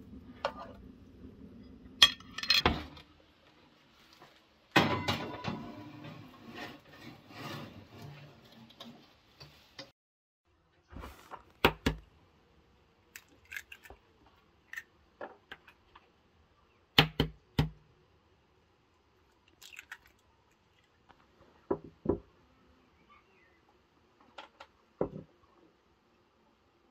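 Kitchenware handled on a table: bowls, spoons and dishes knocked and set down in a series of separate clinks and knocks, with a longer stretch of scraping and rustling about five seconds in.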